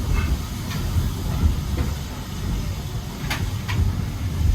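Steady low rumble of a heritage railway coach running along the track, heard from inside the carriage, with two sharp clicks a little over three seconds in.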